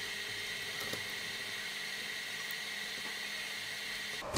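Steady electronic hiss with a constant high whine from the powered-up FPV quad and its video monitor, with a faint tick about a second in as the camera is handled.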